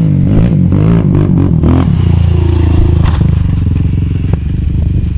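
ATV engine revving up and down several times, then settling into a steady low run about two seconds in.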